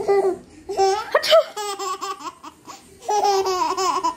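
Baby laughing in short bursts, with a quick rising squeal a little over a second in.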